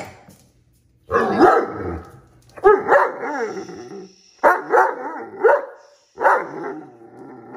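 Great Dane 'talking': four drawn-out vocal bouts of about a second each, with a wavering, up-and-down pitch and short pauses between them.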